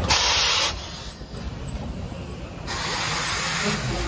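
Steam locomotive venting steam: a short loud hiss at the start, then a second, longer hiss from a little under three seconds in.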